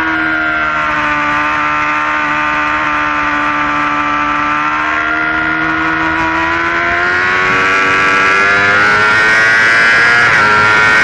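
Yamaha R6's inline-four engine heard on board at high revs. The note sags slightly through a long corner, then climbs and grows louder as the bike accelerates out, with an upshift near the end.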